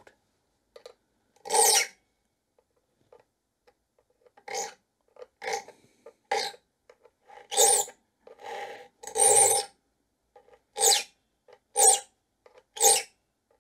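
Triangular saw file drawn across the steel teeth of a dovetail saw, about ten separate rasping strokes roughly a second apart, with a pause after the first stroke. The teeth are being reshaped by hand, filed on both sides until the flat tops are gone.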